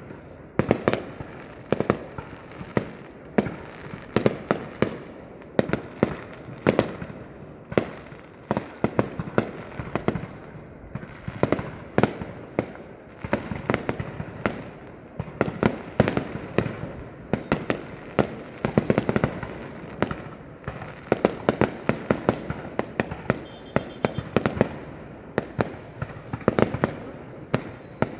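Fireworks display going off: a dense, irregular run of sharp bangs, several a second, over continuous crackling.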